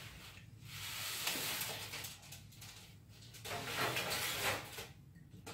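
A baking pan being put into a gas range's oven: the oven door and metal rack scraping and rattling in two stretches, with a few light clicks.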